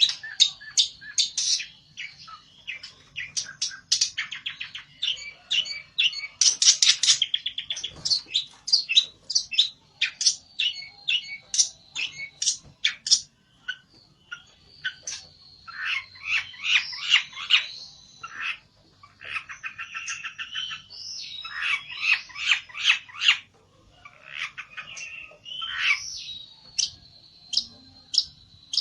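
A pelentet songbird singing an agitated fighting song, a long run of rapid high chirps broken by buzzy trills in the middle, as it calls out a rival.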